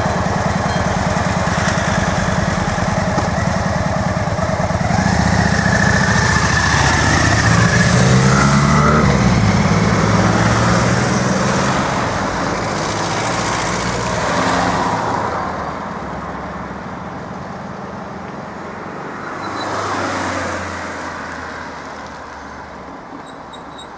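A motorcycle and cars pull away from the lifted barriers and drive over the level crossing one after another. Their engines rev up as they go, and tyres hiss as each passes close by, three times in all. Then the traffic sound fades.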